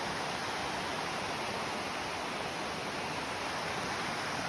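Steady rushing of a flowing stream, an even hiss of water with no break or change.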